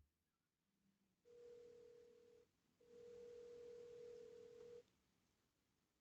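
Faint steady tone of one pitch sounding twice, about a second and then about two seconds, over faint hiss.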